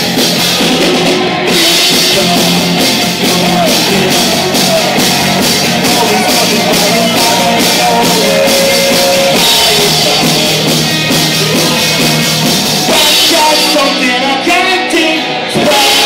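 Live rock band playing loud: electric guitars over a drum kit with steady cymbal hits. Near the end the drums drop out briefly, then the full band comes back in.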